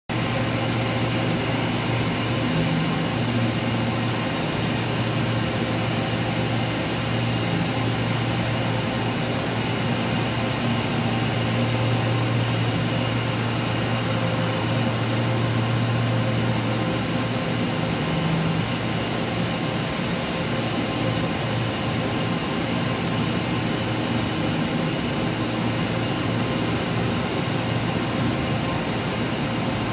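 Trützschler TD10 draw frames running: a steady, loud mechanical hum with a strong low drone and several constant higher tones over an even noise of machinery.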